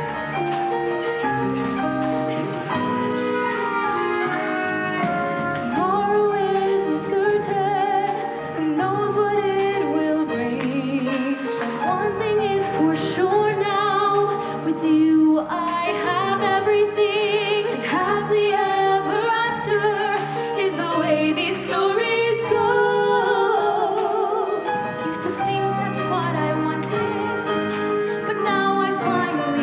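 Female voices singing with vibrato into microphones over a live band's accompaniment.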